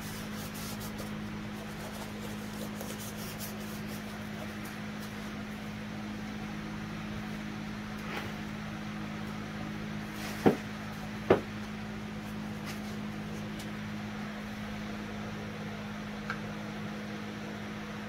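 Steady low mechanical hum, with two sharp clicks about a second apart a little past the middle.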